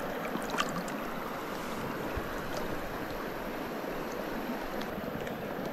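River water running steadily over rocks, with a few small splashes.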